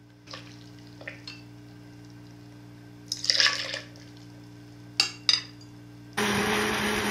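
Vegetable broth poured from a bowl into a blender jar of steamed pumpkin, with a few light clinks of glass. About six seconds in, the countertop blender's motor starts and runs steadily, the loudest sound.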